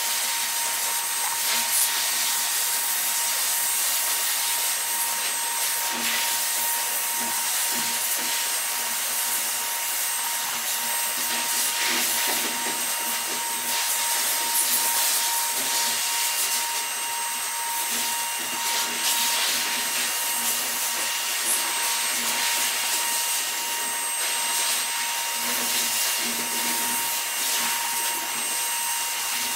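Pet grooming dryer blower running steadily: a constant airy hiss with a thin, steady high whine.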